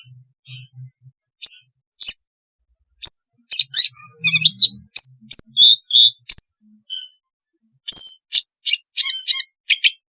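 Long-tailed shrike (cendet) calling: short, sharp, harsh high notes given in quick irregular clusters with brief pauses between them.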